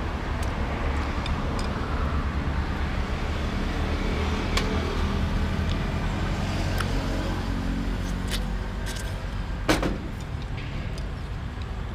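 Steady low rumble of road traffic, with sharp clicks of a spoon and chopsticks against a soup bowl and one louder knock near the end.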